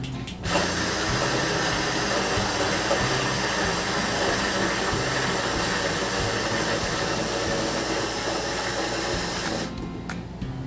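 Portable rechargeable battery juice blender running with a full jar of papaya, its small motor whirring steadily for about nine seconds, starting about half a second in and cutting off near the end. The owners take its sound for a battery running low.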